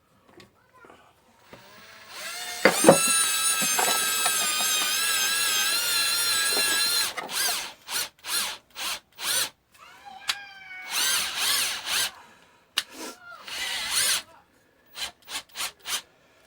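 Electric drill working in a pit bike engine block's stripped bolt hole, cutting out the hole for a helicoil thread insert. It runs steadily for about four seconds with a slightly wavering whine, then comes in several short trigger bursts, one spinning up in pitch.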